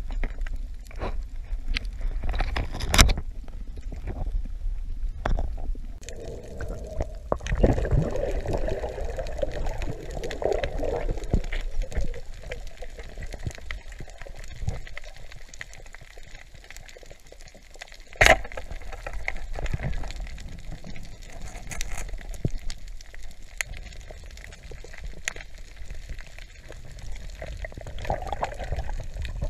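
Muffled underwater sound around a diver's camera: low water rumble with a stretch of gurgling several seconds in, and two sharp clicks, one about three seconds in and one just past the middle.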